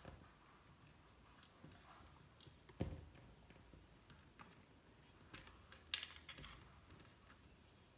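Faint scattered clicks and light knocks of panel terminal connectors and their nuts being fitted and tightened by hand, with a dull knock about three seconds in and a sharp click about six seconds in.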